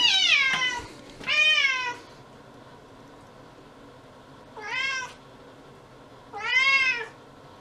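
Domestic cat meowing four times: two calls close together at the start, the first falling in pitch, then two more a couple of seconds apart, each rising and then falling.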